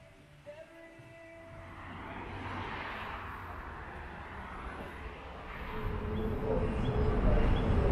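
Vehicle noise, a low rumble that swells and grows markedly louder over the last two seconds.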